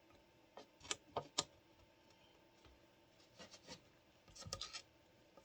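Faint, irregular light clicks and taps of small objects being handled, coming in a few short clusters.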